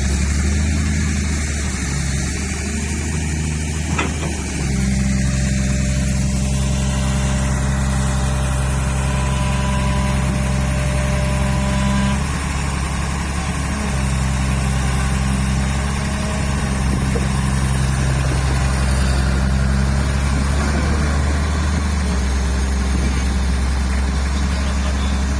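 Kobelco SK07 excavator's diesel engine running steadily under working load, its note changing a few times as it works. A brief higher whine comes in about a third of the way through.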